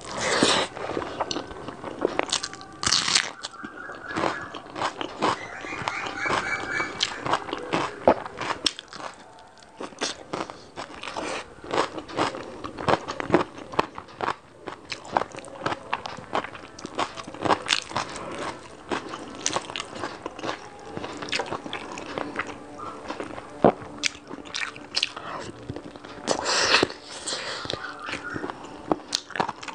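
Close-miked chewing and biting of rice and chicken curry eaten by hand, a dense run of small clicks and mouth sounds, with louder bursts near the start and near the end.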